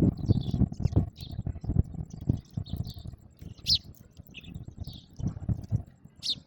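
House sparrows chirping, short calls scattered through, over a run of low dull thumps that are louder than the birds, thickest at the start and again about five seconds in.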